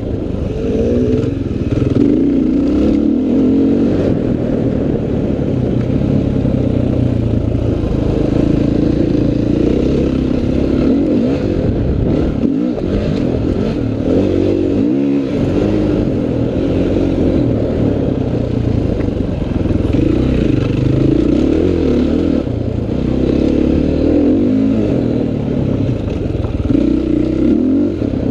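Off-road motocross bike engine heard from on board, its pitch repeatedly rising and falling as the throttle is opened and closed through the corners and ruts of a dirt track.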